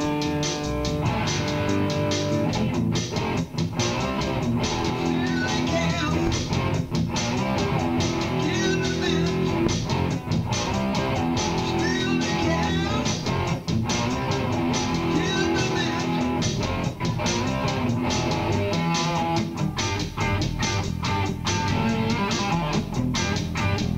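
Guitar-led song music with a bass-guitar line under it, playing steadily.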